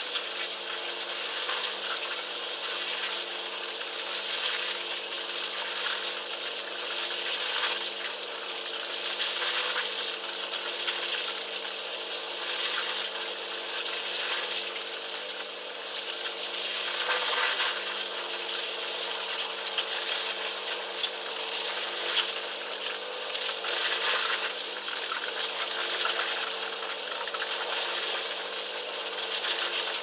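Currys CDWTT10 dishwasher running: a continuous rush of water spraying inside that swells and eases every few seconds, over a steady electrical hum.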